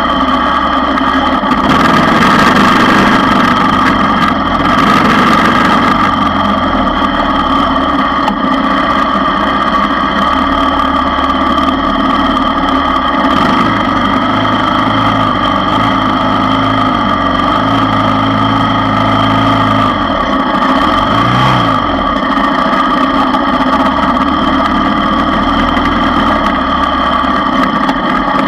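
ATV engine running continuously while riding a dirt trail, its revs shifting up and down in the middle and briefly rising and falling about three quarters of the way through.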